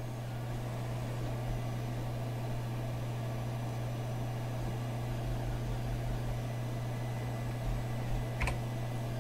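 Steady low hum and fan noise of a Commodore PC 10-II computer, with a single keyboard key click about eight and a half seconds in.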